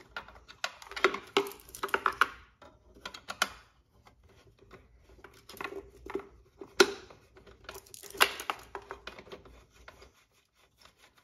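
A T20 Torx screw being unscrewed by hand from a headlight assembly: irregular clicks and scraping of the driver and screw, in uneven clusters with short pauses.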